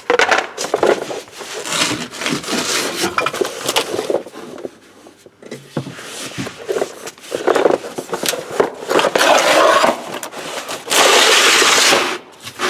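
Irregular scraping, rubbing and knocking of hard parts being handled, with a long, loud rasping stretch near the end.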